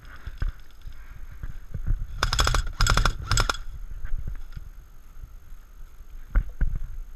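Airsoft gun firing three short automatic bursts in quick succession, each a fast run of clicks. Two thumps come near the end, over a low rumble.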